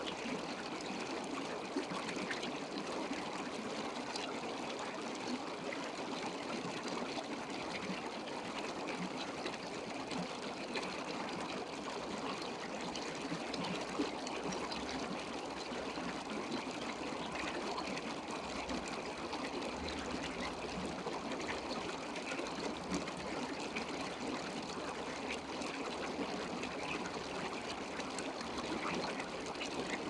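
Running water trickling steadily, a continuous even rush.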